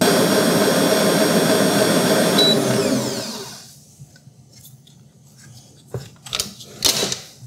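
Vevor 7.4-quart stand mixer running with its wire whisk, whipping heavy cream with powdered sugar: a steady motor whine that starts abruptly, then winds down in falling pitch as it is switched off, fading out about three and a half seconds in. A few short knocks near the end.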